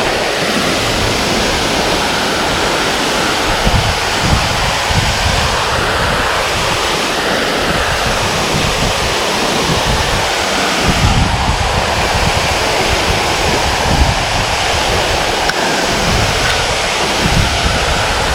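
Small creek waterfall rushing steadily, with wind gusting on the microphone in low, uneven rumbles.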